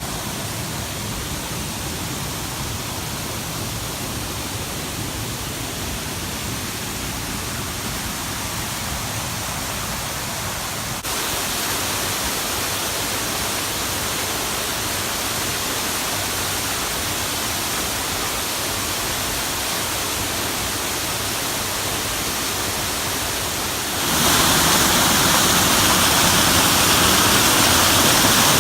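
Tanyard Creek Falls, a small creek waterfall, splashing and rushing as a steady wash of water noise, running lower than usual. It grows louder in two steps, about a third of the way in and again near the end.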